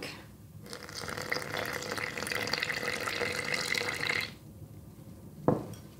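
Milk being poured from a glass measuring cup into flour in a glass mixing bowl, a steady trickle lasting about three and a half seconds. A single knock comes about five and a half seconds in.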